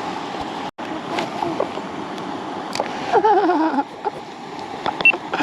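Steady rush of river water running high after a flood, with a short wavering vocal sound about three seconds in.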